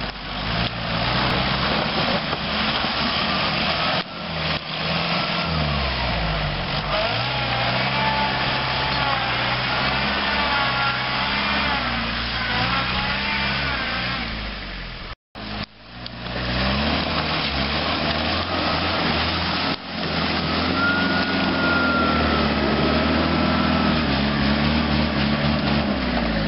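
Turbo-diesel engine of a Toyota Land Cruiser 70-series 4x4 working under load as it climbs a muddy off-road slope, revs rising and falling as the driver feeds the throttle. The sound drops out briefly about fifteen seconds in, then picks up again.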